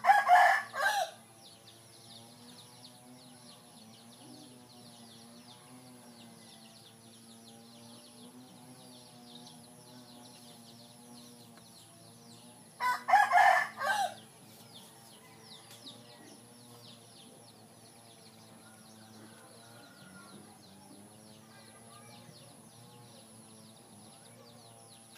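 A rooster crowing twice, once right at the start and again about 13 seconds in, each crow about a second long. Between the crows a faint steady hum and a high, fine buzz carry on underneath.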